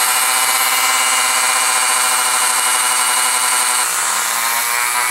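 Flexible-shaft rotary tool running at high speed with a drill bit, drilling out holes in a plastic meter case: a steady high-pitched motor whine. About four seconds in, the pitch briefly sags and climbs back as the bit loads up.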